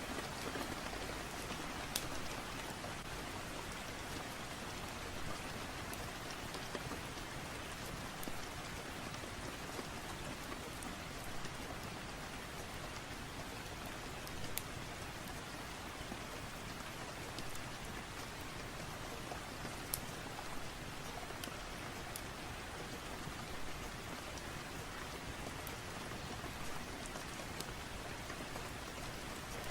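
Steady rain falling, an even hiss, with a few sharp pops scattered through, the loudest about two seconds in and near twenty seconds.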